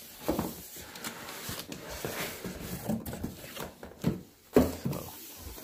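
Cardboard boxes rubbing and scraping as a product box is pulled out of a shipping carton, with a few sharper knocks of cardboard, the loudest about four and a half seconds in.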